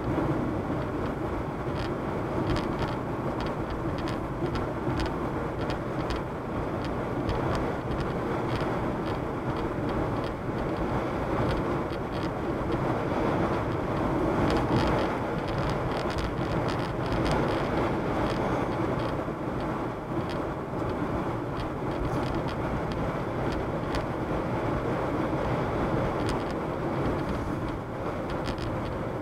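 Steady road and driving noise of a moving car heard from inside the cabin, with many faint clicks running through it.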